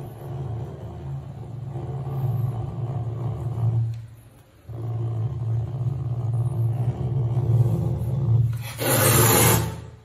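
Caracal making a low, continuous rumble in its throat while being towelled dry, which breaks off briefly about four seconds in. Near the end it lets out a loud, harsh scream lasting about a second.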